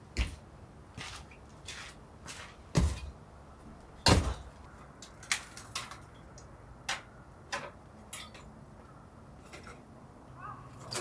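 Firewood and camp gear being handled and set down on a fire sheet: irregular knocks and clicks, with heavier thuds about three and four seconds in.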